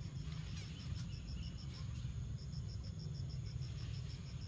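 An insect chirping in a rapid train of evenly spaced, high-pitched pulses, several a second, with a short break about halfway through. A steady low rumble runs beneath it.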